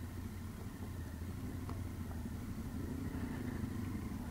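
A 2015 Triumph Tiger 800's three-cylinder engine running at low revs on dirt, heard from the rider's helmet camera, with a slight rise in revs about three seconds in.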